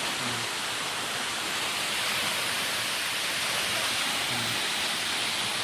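Steady rushing of water falling down a waterfall, here running at low flow with only a small amount of water coming over.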